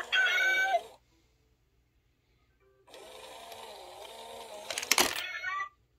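Battery-powered cat coin bank: a short electronic tune ends within the first second. About three seconds in, its small motor runs for nearly three seconds while the cat's paw reaches out and drags the coin in, with a tune playing over it and a few sharp clicks near the end as the coin is pulled away.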